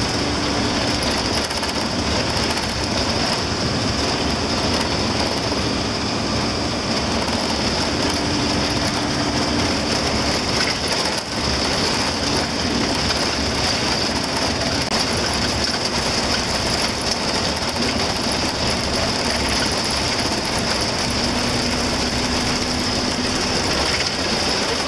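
A bus driving on an unpaved gravel road, heard from inside the cab: a steady engine drone mixed with the constant noise of tyres on the gravel surface.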